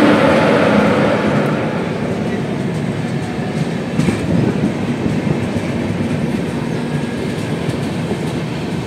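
Moving passenger train heard from inside an air-conditioned coach: a steady running noise of the wheels on the track.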